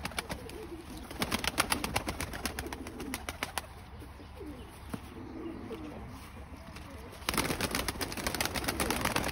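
A flock of domestic pigeons cooing, low wavering calls through the middle. Bursts of rapid clattering come at the start and again in the last two seconds.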